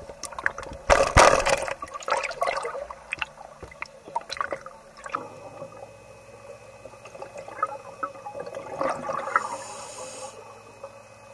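Water splashing and gurgling at the surface in uneven bursts, loudest about a second in, with another splash near the end. A faint steady hum runs underneath.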